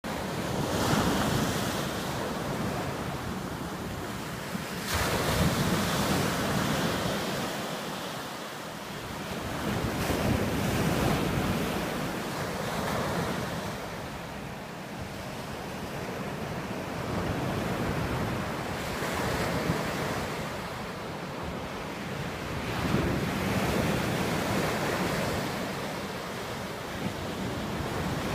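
Small surf breaking and washing up a sandy beach, the rush of water swelling and easing with each wave every few seconds. Wind buffets the microphone.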